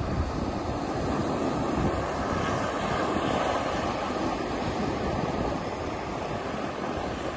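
Sea surf washing in over shoreline rocks, swelling briefly about three seconds in, with wind buffeting the microphone.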